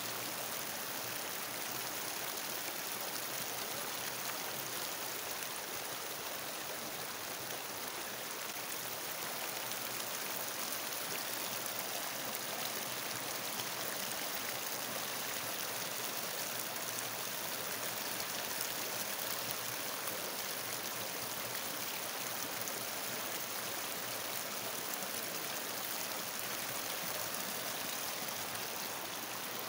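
Muddy river in flood, rushing and churning over a submerged ridge in its bed: a steady rushing noise that does not let up.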